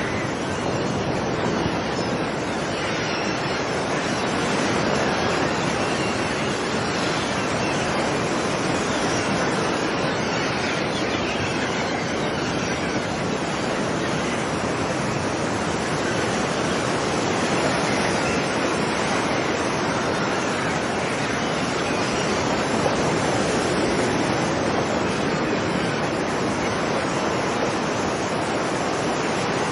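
Sea surf washing on a beach: a steady, loud rush of breaking waves that swells and eases slowly.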